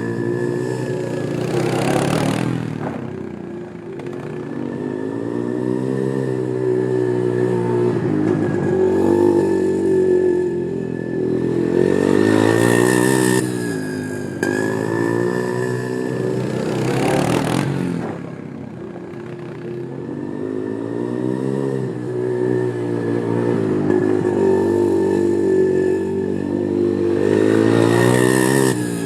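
ATV engines revving up and down over and over, the pitch climbing and dropping as the quads speed up and slow down, with a few short rushes of noise along the way.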